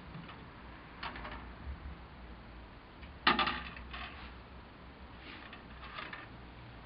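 Plastic model-kit sprue being handled and turned around on a wooden table: a few light clicks and rattles, with the loudest clack about three seconds in.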